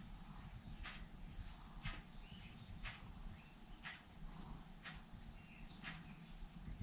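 Faint outdoor ambience: small bird chirps, with a short, sharp tick repeating about once a second over a low rumble.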